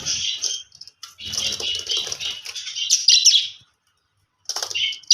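Budgerigar chattering and warbling in rapid, busy bursts of high chirps, with a pause of about a second near the end before a short final burst.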